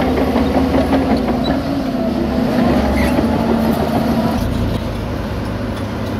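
Shantui DH17 C2 bulldozer's diesel engine working under load as its blade pushes soil and rock. About four seconds in it gives way to the lower, steadier hum of a dump truck's diesel engine running while it tips its load.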